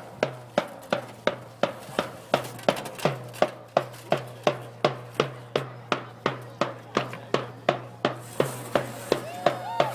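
A drum struck in a steady, even beat, about three strikes a second, each stroke ringing briefly. Near the end, voices start to come in over it.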